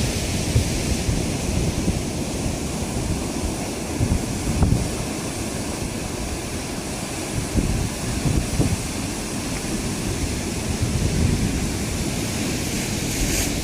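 Sea surf washing against a concrete tetrapod breakwater, with wind buffeting the microphone in low gusts.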